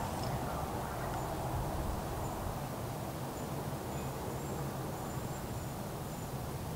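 Steady low drone of the large car ferry Lavender's machinery, heard from a distance as the ship leaves its berth using its side thrusters, with a few faint high chirps over it.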